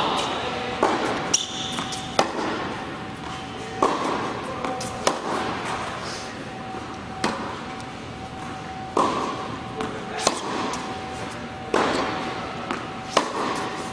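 Tennis ball being struck by rackets and bouncing on an indoor hard court during a rally: sharp hits every second or two, each echoing in the hall. A steady high hum runs underneath.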